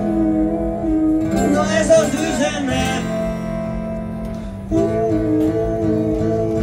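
Live amplified acoustic guitar playing an instrumental passage between sung lines, with held chord tones underneath. A brief burst of voice comes about a second and a half in.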